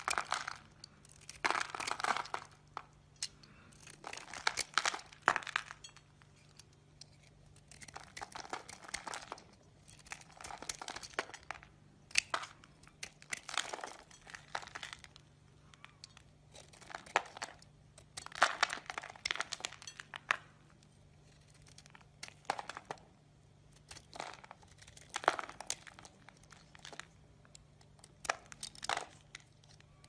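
Utility knife blade carving a bar of soap: repeated crunchy scraping strokes with short pauses between, as flakes and chunks break off.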